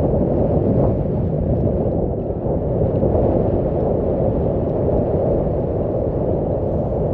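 Steady low rumbling noise aboard a moving river cruise ship, the ship's running noise mixed with wind on the microphone.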